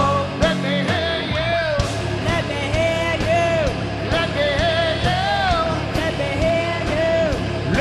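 Heavy metal band playing live: a lead singer's melody line over drums and bass.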